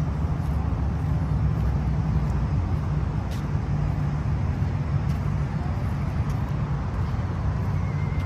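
Steady low rumble of road traffic, with a few faint ticks over it.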